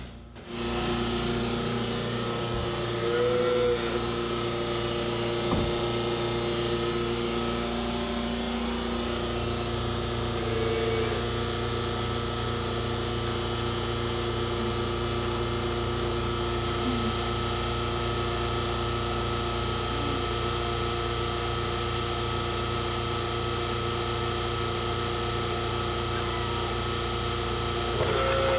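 Steady machine hum with several held tones in dairy-barn machinery, starting abruptly just after the start and running on evenly.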